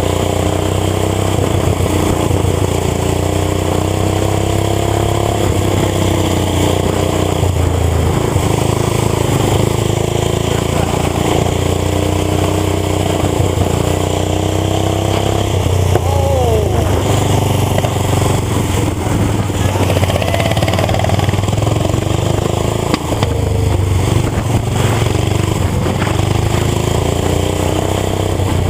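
Small lawn-tractor engine running hard at high revs, its pitch wavering up and down as it goes through turns and straights, with a quick drop in revs about halfway through.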